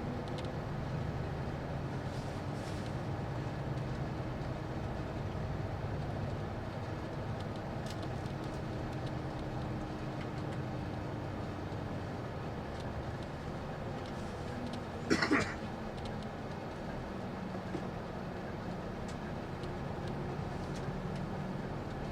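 Steady engine drone and road rumble heard from inside a moving bus, with one brief, sharp, louder sound about fifteen seconds in.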